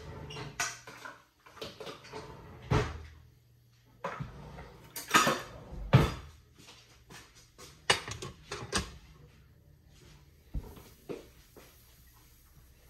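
Household clatter: a string of about a dozen knocks and bangs from cupboard doors and dishes being handled, the loudest near the middle and fewer towards the end.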